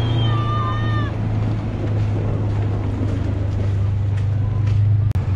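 An engine running steadily with an even low drone. A few thin high tones sound over it and stop about a second in.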